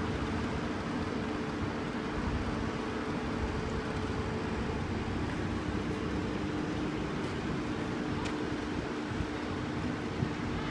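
Street noise with a vehicle engine running steadily, giving a constant low hum.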